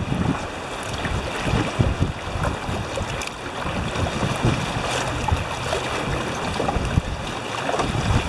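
Rushing whitewater of a creek riffle churning around an aluminum canoe as it runs through, a steady loud wash. Wind buffets the microphone with uneven low rumbles.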